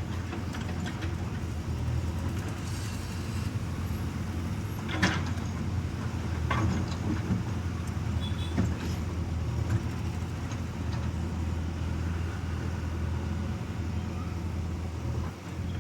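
Diesel engine of a JCB 3DX backhoe loader running steadily under working load, with a few sharp clanks about five, six and a half and eight and a half seconds in.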